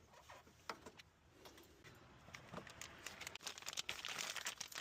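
Faint, scattered metallic clicks and taps as the locking clips on the ends of a hood lift support are pried off, coming more often in the second half.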